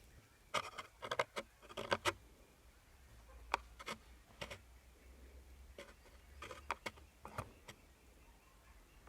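Scattered clicks and knocks in short clusters, with a low steady hum underneath: parts and tools being handled during engine work.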